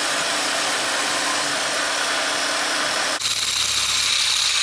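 Steel bar for a small bracket being cut, a steady harsh noise with a low hum, which stops abruptly about three seconds in; then a power drill bores a hole through the steel bracket clamped in a vise, its motor whining steadily.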